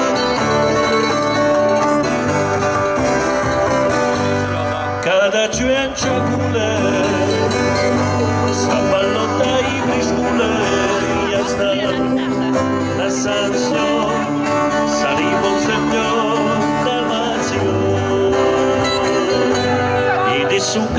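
Music with plucked string instruments, playing steadily without a break.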